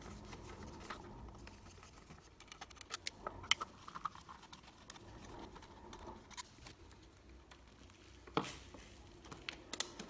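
Faint scattered clicks and scrapes of a screwdriver undoing the screws of a plastic double socket faceplate, then of the faceplate being handled and worked loose from its metal back box. There is a sharper click about eight seconds in.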